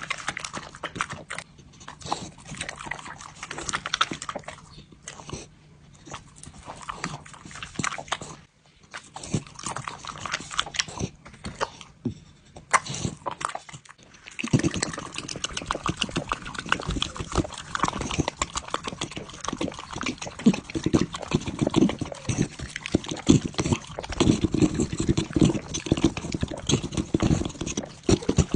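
Dog licking and lapping at close range: a rapid run of wet tongue clicks and smacks against a metal plate, with short pauses in the first half, then denser and louder from about halfway on.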